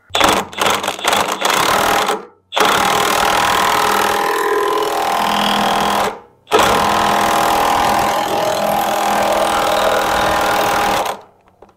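Cordless impact wrench hammering the pitman arm nut down onto the steering gearbox shaft: a few short stuttering bursts, then two long runs of several seconds each with a brief pause between.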